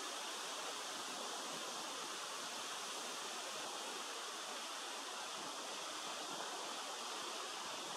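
A steady, even rushing hiss of outdoor ambience, unchanging throughout, with no distinct events.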